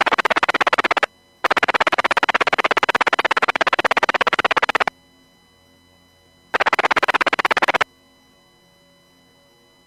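Marine VHF radio static: three loud bursts of hiss with a fast buzzing pulse, each cutting in and out abruptly as the squelch opens and closes, the last ending about eight seconds in. Between the bursts there is a low electrical hum.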